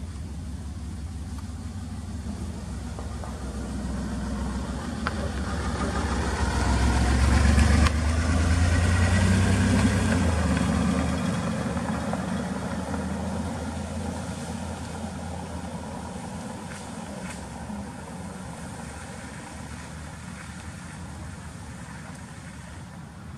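A car's engine and tyres as it drives slowly past close by: a low rumble that grows louder for about eight seconds, then slowly fades away.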